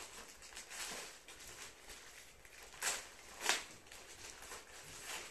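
Cardboard box and its packaging being handled and opened by hand: a run of short rustles and scrapes, with two louder, sharper scrapes about three seconds in.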